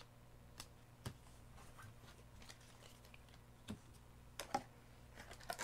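Trading cards being handled and gathered up, making a few faint, scattered clicks and taps.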